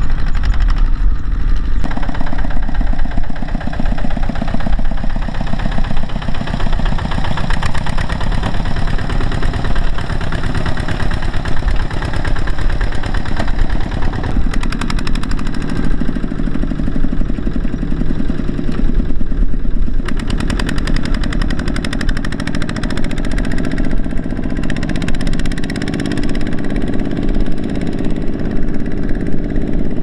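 Single-cylinder diesel engine of a two-wheel hand tractor running steadily under load, a fast, even putter, as it pulls a loaded trailer through a muddy rice field.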